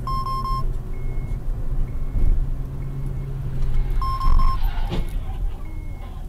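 Steady engine and road hum inside a moving car's cabin. A loud electronic beep sounds at the start and again about four seconds in, with short higher beeps about once a second, and a single sharp knock around five seconds in.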